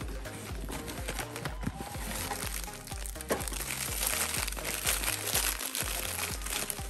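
Bubble-wrap packaging crinkling and rustling in the hands, strongest from about halfway through, over background music with a repeating bass pattern.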